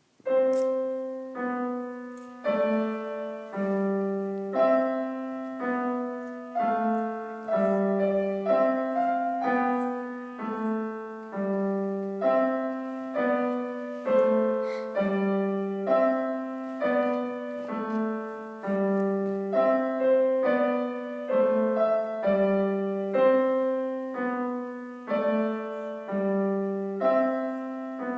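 Piano playing a simple, slow tune, a short phrase of struck notes repeated over and over, with a lower part under the melody. The playing starts suddenly out of silence.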